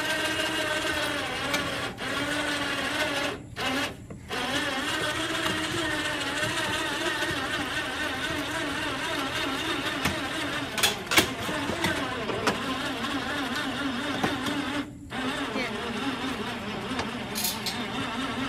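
Small 12-volt electric winch whining under heavy load as it drags a steel hog trap holding two grown hogs up into a trailer, its pitch wavering with the strain. The motor stops for a moment twice about three to four seconds in and once more near fifteen seconds, with a couple of sharp metal knocks about eleven seconds in.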